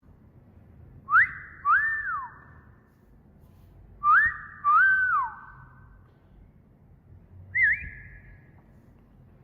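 Wolf whistle, given twice about three seconds apart, each a quick rising note followed by a longer note that rises and then falls away. Near the end comes a short, wavering whistle. The whistles ring out with a little echo.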